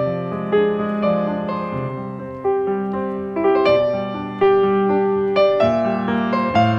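Background piano music: a gentle run of struck notes over held chords, each note fading after it is played.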